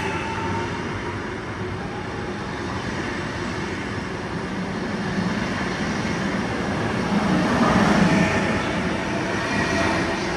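A regional passenger train moving through the station, its running noise swelling to a peak about eight seconds in.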